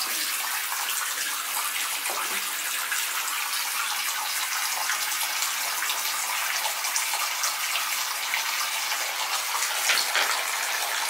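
Bath tap running into a bathtub as it fills: a steady rush of water.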